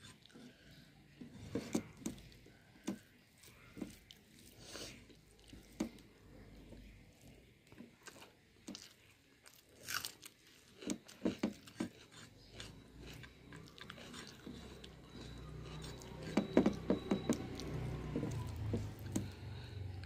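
Close-up chewing and mouth sounds of a person eating rice and kofta curry by hand, in irregular short bursts that grow busier near the end.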